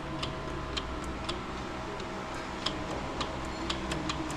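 Scattered sharp mechanical clicks, about a dozen at uneven intervals, over a steady low hum.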